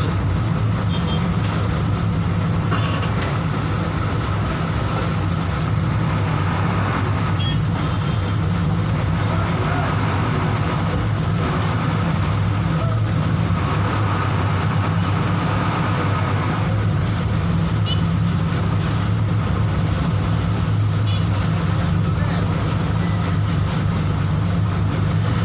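Bus engine running steadily under way with road and tyre noise, heard from inside the passenger cabin.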